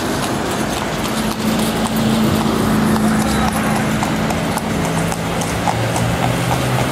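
Horse hooves clip-clopping on a paved street, with traffic noise and an engine hum that steps down in pitch about halfway through.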